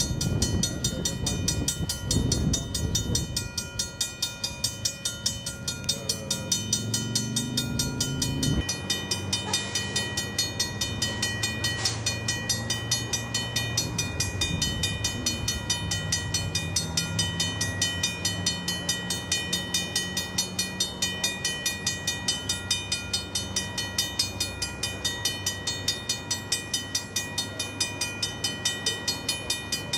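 Railroad crossing warning bell ringing continuously in a rapid, even stroke while the crossing signals flash with no train present. Over the first several seconds a vehicle engine rises in pitch, then cuts off about eight seconds in.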